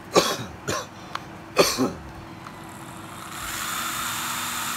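12V cordless screwdriver motor given three short trigger blips, each spinning up and stopping quickly with a falling pitch as the electric brake catches. Then it runs steadily, building up over about a second as the variable-speed trigger is squeezed; the seller judges speed control and brake to be working.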